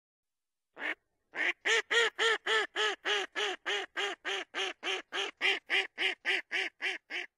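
A fast, evenly spaced run of about twenty duck quacks, roughly three a second, after a single opening quack, growing slightly fainter toward the end.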